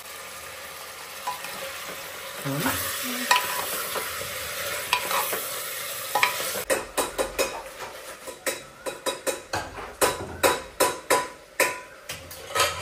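Chicken frying with onion and whole spices in a pressure cooker pot as a spatula stirs it: a steady sizzle with a few scrapes, then from about halfway a quick run of spatula knocks and scrapes against the pot, two or three a second.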